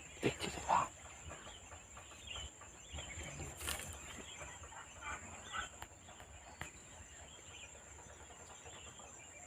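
Short bird calls outdoors: a loud rising call about half a second in, then a few fainter calls around four and five seconds.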